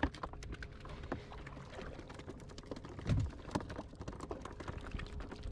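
Rapid scattered clicks and knocks of hands handling fish and gear in a plastic bucket on an inflatable dinghy, with one low thump about three seconds in.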